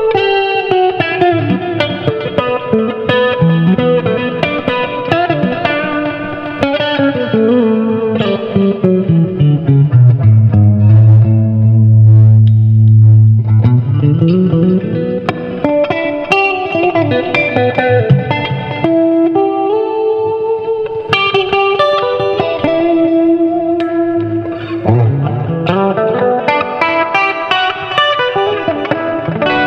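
Electric guitar played through a small Marshall combo amp and picked up by a condenser microphone set in front of the amp. A solo melodic line winds down to a low note held for about three seconds near the middle, the loudest moment, then climbs again.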